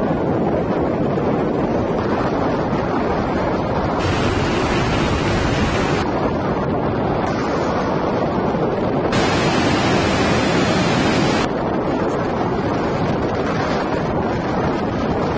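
Wind rushing over the microphone as a loud, steady roar. Its tone changes abruptly every couple of seconds.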